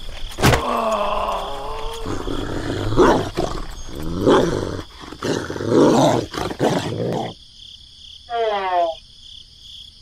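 A dog growling and barking, a run of rough calls sliding in pitch that stops about seven seconds in. It starts with a sharp click about half a second in, and a short squeaky call comes near the end.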